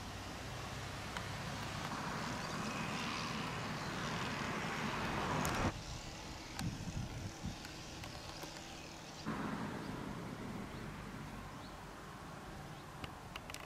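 Outdoor location sound with a passing vehicle: a wash of noise swells steadily and breaks off abruptly at a cut. It is followed by a quieter stretch with a few low rumbles, then a steady wash of noise that slowly fades.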